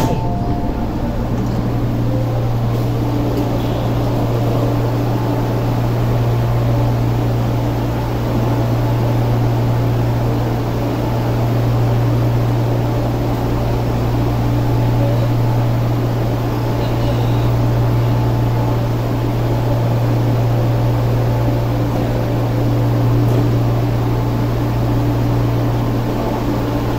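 Metro Cammell (MLR) electric multiple-unit train standing at a platform with its doors open, giving a loud, steady low hum with a fainter higher tone above it.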